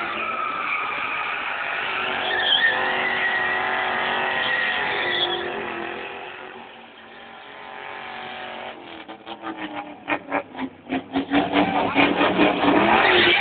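Ford Mustang GT's 5.0-litre V8 held at high revs while the spinning rear tyres squeal in a donut. The sound fades about seven seconds in, then returns as loud, rapid pulses over the last few seconds.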